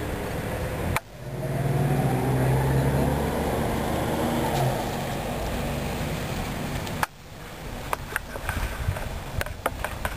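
A car engine runs as a car drives past on the parking lot road, the sound swelling and then fading. About seven seconds in the sound cuts off abruptly, and scattered light clicks and knocks follow.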